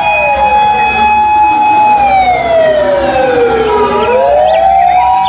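Japanese fire engine siren wailing: a loud held tone with a second siren tone overlapping, sliding down in pitch about two seconds in and rising again near the end.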